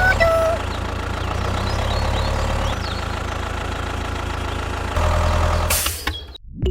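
A motor running steadily with a low hum. It gets louder about five seconds in and drops away just before the end.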